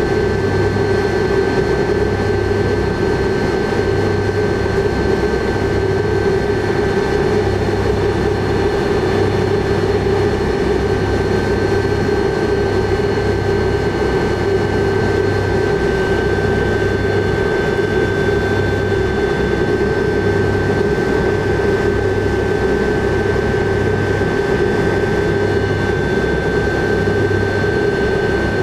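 Tupolev Tu-154B-2's three rear-mounted Kuznetsov NK-8-2U turbofans running while the airliner taxis, heard from inside the passenger cabin: a steady whine and hum with a low throb pulsing about once every second and a half.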